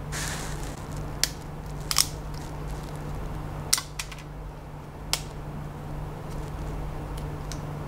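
Flush cutters snipping cured resin support material off a 3D print, a handful of sharp snips spread over the first five seconds or so, over a steady low hum.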